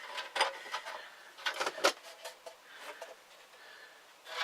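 Clicks and knocks of a stiff HDPE plastic latch being pulled down and worked against a box trap door. There is one knock just under half a second in and a cluster of sharper clicks around the middle, with fainter taps after.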